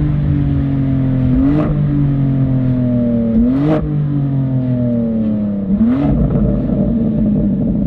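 BMW M2 G87's twin-turbo inline-six slowing down, its note falling steadily, broken by three quick rev blips with a sharp crack each: downshifts while decelerating. After the last blip the note turns rougher and more crackly.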